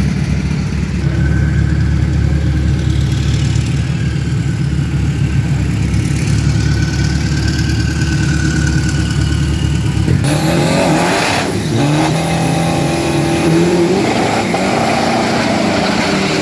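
Turbo-diesel drag-racing pickup engines at the start line: a low, pulsing idle for about ten seconds, then the engines revved hard, the pitch rising and falling, with a rising rev near the end.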